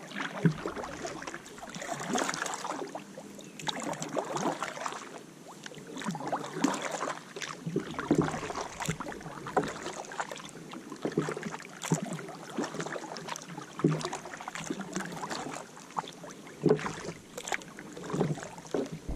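Kayak paddle strokes swishing and splashing in the water, one every second or two, with small sharp knocks and drips between them.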